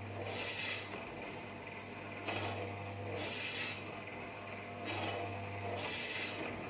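Electric meat slicer's circular blade cutting half-frozen beef: three slicing passes about two and a half seconds apart, each a hissing cut over the steady hum of the running motor.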